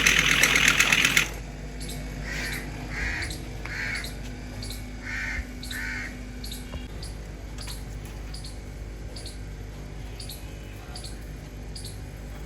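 A crow cawing five times in two short groups, after a loud, rushing noise burst of about a second at the start.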